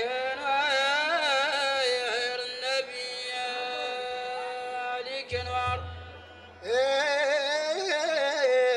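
A man's solo voice chanting Mauritanian medh, a praise song for the Prophet, through a microphone, holding long notes with wavering ornaments. About five seconds in the chant breaks off and a low thud sounds, then another man's voice takes up the chant near seven seconds.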